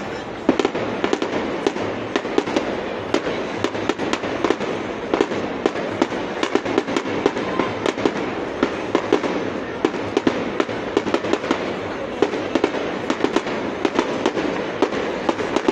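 Fireworks display going off: a dense, irregular run of sharp pops and bangs, several a second, with no break.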